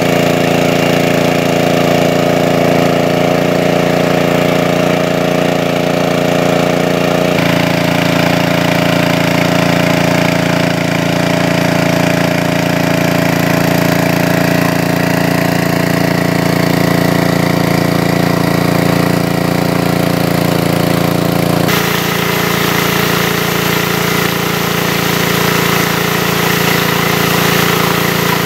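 Engine-driven water pump running steadily while it sucks water, a loud, even engine note. The note shifts abruptly twice, about a quarter of the way through and again near three quarters.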